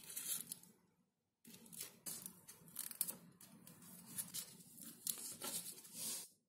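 Small foam pieces being handled and rubbed together by hand: a blue foam block pressed and fitted onto a white Depron foam strip, giving irregular scratchy rustles. The sound breaks off briefly about a second in and stops shortly before the end.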